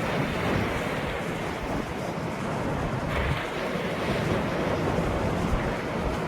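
Ocean waves washing ashore in a continuous surf wash, one wave breaking a little more strongly about halfway through, with some wind rumbling on the microphone.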